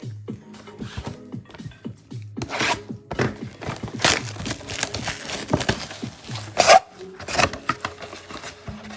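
Plastic wrap and cardboard of a sealed trading-card box being rubbed, torn and handled as it is opened, in a run of irregular scratchy rustles, loudest about two-thirds of the way through. Background music plays underneath.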